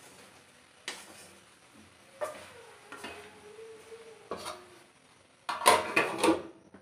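A wooden spatula knocks and scrapes in a metal kadhai as potato and cauliflower are stirred: four separate knocks, one leaving the pan ringing for a couple of seconds. Near the end, a louder clatter of metal on metal as a plate is set on the kadhai as a lid.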